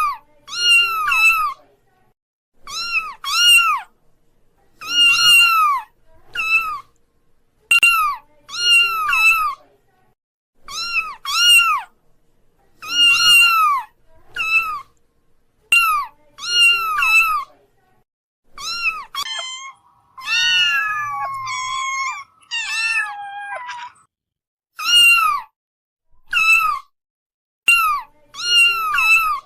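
Kittens meowing: short, high-pitched mews in twos and threes, repeating every second or two. Between about 19 and 24 seconds in, longer drawn-out meows that fall in pitch overlap one another.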